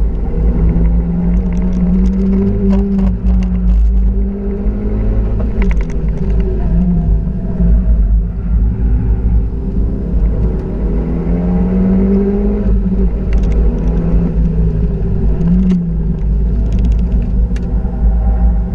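Renault Mégane RS 250's turbocharged 2.0-litre four-cylinder with its catalytic converter removed, heard from inside the cabin while driven hard on track. The engine note rises and falls several times as it accelerates and lifts through corners, over a steady low rumble of road and tyre noise.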